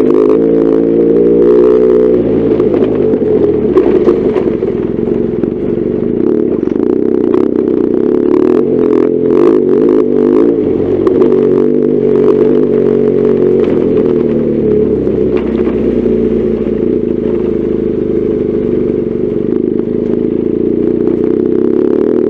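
BMW R1200GS Adventure's boxer-twin engine running under way, its pitch rising and falling as the throttle changes. A run of sharp clattering comes about nine to eleven seconds in.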